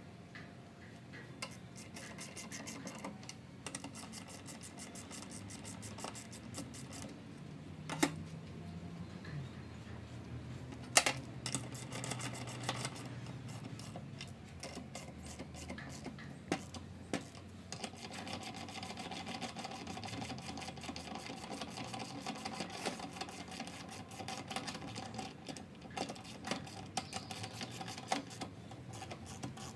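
Rapid metallic clicking of hand tools working the nuts on a marine engine coupling drive gear, with two sharp metal knocks about 8 and 11 seconds in, over a low steady hum.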